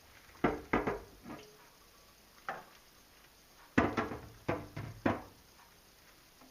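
Irregular knocks and clunks of hard objects being handled, about nine in all, in two clusters: a quick run of four about half a second in and another of five near the middle.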